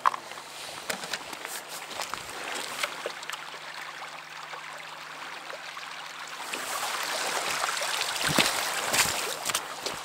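Footsteps crunching on a pebble shore with a scatter of small clicks, then, about six seconds in, water splashing and streaming as a square lift net is raised from the river, with a few sharper splashes near the end.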